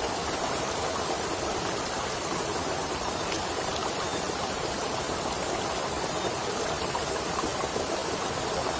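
Small, shallow stream running low in the dry season, its water flowing steadily over rocks.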